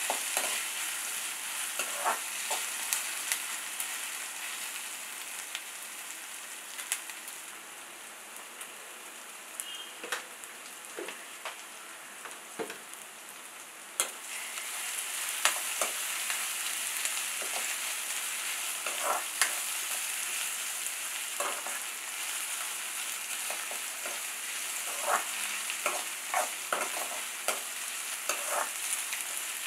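Sliced onions, green chillies and curry leaves sizzling in hot oil in a pan, with a metal spatula scraping and clicking against the pan as they are stirred. The sizzle sinks lower for a few seconds, then comes back louder suddenly about halfway through.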